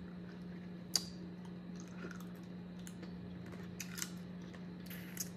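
Boiled crawfish being eaten close to the microphone: a few short sharp clicks and wet snaps of shells and fingers at the mouth, the sharpest about a second in. A steady low hum sits under it.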